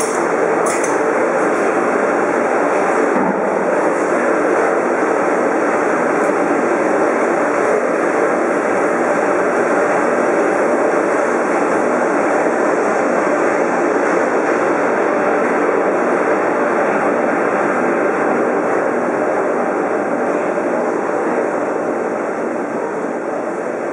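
Sausage filling machine running: a loud, steady machine noise with no breaks, easing off slightly near the end.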